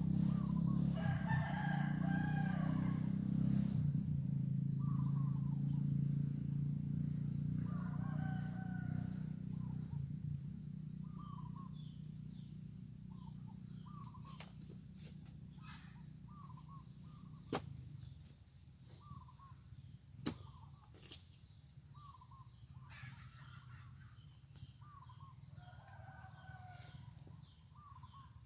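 Roosters crowing several times, with short chirping calls in between. A low rumble fades away over the first ten seconds, and two sharp clicks come about two-thirds of the way through.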